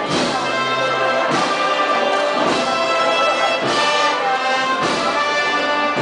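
Brass band playing a slow Holy Week processional march (marcha procesional), sustained chords changing about every second.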